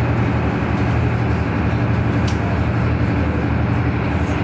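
Tour boat's engine running steadily, a constant low hum with water and hull noise, heard from inside the cabin. A faint tick sounds about halfway through.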